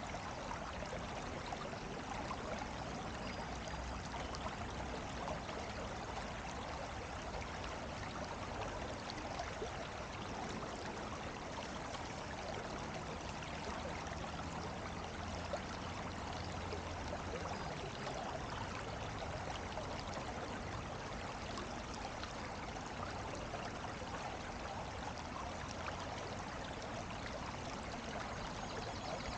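Water running steadily, a continuous babbling rush.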